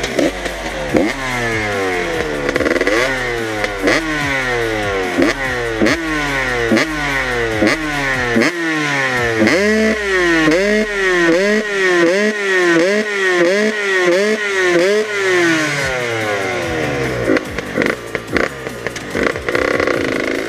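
Husqvarna 125 two-stroke motocross engine with an HGS expansion pipe and a handmade silencer, revved over and over. Each rev rises in pitch and drops off sharply. The revs come about once a second at first, then in quicker blips about twice a second in the middle, then slower again near the end.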